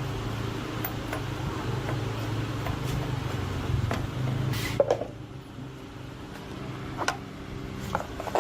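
A small motor running steadily, with scattered clicks and a knock just before halfway; the hum drops in level about five seconds in.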